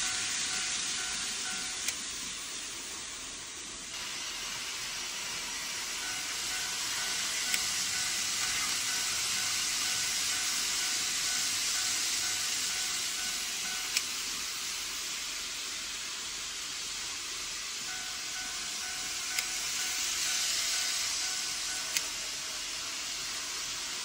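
Model train rolling along the track: a steady high hiss of wheels and motor, with a faint steady whine that comes and goes and a few single sharp clicks.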